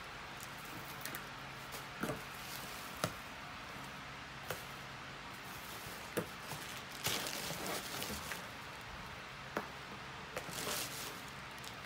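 Tissue paper and shredded paper filler rustling and crinkling as a cardboard gift box is unpacked by hand, with scattered light knocks and taps. The rustling is louder about seven seconds in and again near the end.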